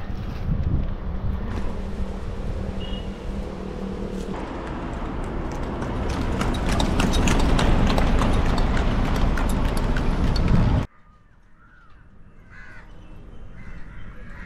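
Loud, steady wind and road noise from travelling along a highway, cutting off suddenly about eleven seconds in. After that it is much quieter, with short bird calls.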